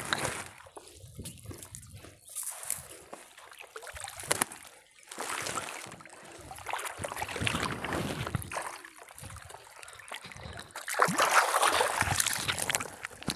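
A wet fine-mesh gill net being hauled hand over hand out of the water onto a small boat, with water splashing and trickling off the mesh in uneven bursts that grow louder near the end.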